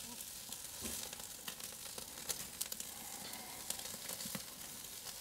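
Marinated chicken satay skewers sizzling over direct charcoal heat on a barbecue grate, a steady hiss with scattered small crackles, as the sugary marinade caramelises in the final sear.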